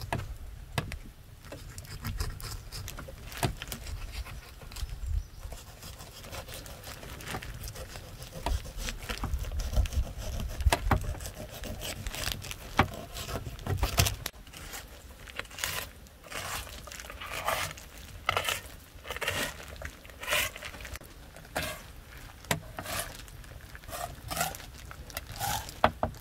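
A knife slitting and scraping through the flesh of a raw whole sturgeon on a table covered with a plastic sheet, with the plastic crinkling under the hands. From about halfway the knife strokes come as a run of short scrapes, one or two a second.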